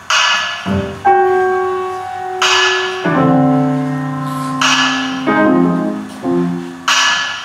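Grand piano playing slow, heavy chords struck about every two seconds, each left to ring and fade, with quieter single notes in between; the ringing chords have a bell-like quality.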